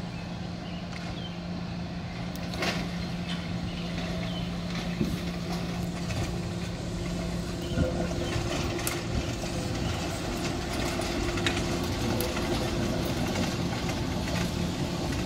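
SEPTA Kawasaki LRV trolley car moving slowly through a curved track switch, with a steady electric hum that changes pitch about halfway through. A few sharp clicks come from the wheels on the trackwork, and the sound grows slightly louder as the car passes close.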